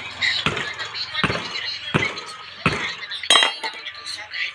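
Hammer striking the steel rim and tyre of a 6.00-16 tractor front wheel, five metallic clinks about one every 0.7 s, the last the loudest, beating the tyre bead loose for a puncture repair. A low steady hum runs beneath.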